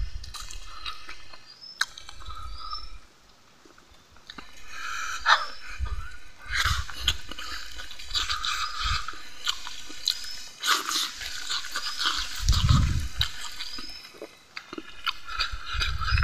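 Close-up wet chewing and lip-smacking of someone eating rice and fish curry by hand, with clicky mouth noises coming in clusters. Short high chirps repeat through it in the background.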